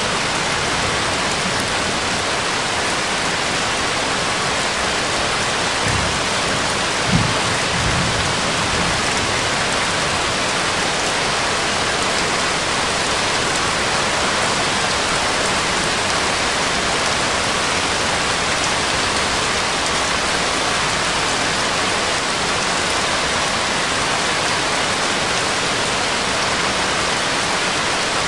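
Steady rain ambience, an even hiss of rainfall, with a brief low rumble about seven seconds in.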